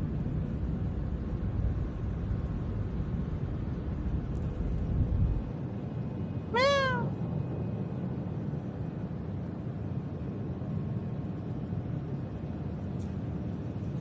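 A domestic cat gives one short meow, rising then falling in pitch, about six and a half seconds in. Under it runs a low rumble that drops away about a second before the meow.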